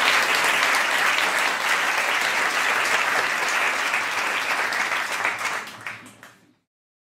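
Audience applauding, a dense patter of many hands clapping that fades out over about a second near the end and then cuts off to silence.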